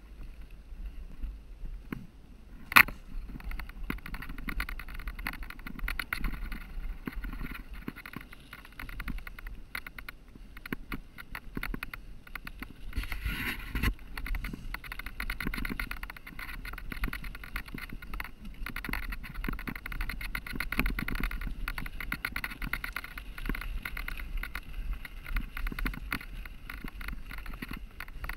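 Mountain bike ridden fast down a rough dirt-and-stone singletrack: constant rattling and clattering of the bike as the tyres run over stones and gravel, with a low wind rumble on the microphone. One sharp knock about three seconds in.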